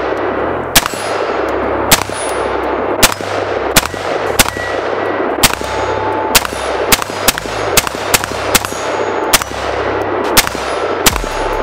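Custom AR-15-style rifle fired semi-automatically in a quick, uneven string of about sixteen shots, each crack echoing back. Some shots are followed by the brief ringing clang of steel target plates being hit.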